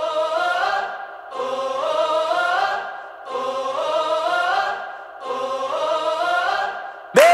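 Background music: a short choral phrase of voices that rises in pitch, repeated four times about every two seconds. Just before the end a louder, different song with singing cuts in.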